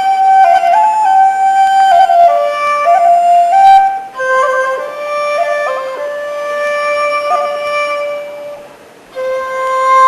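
Solo flute playing a slow, ornamented folk-song melody, one note at a time with grace notes. It pauses briefly about four seconds in, then tapers off and comes back in near the end.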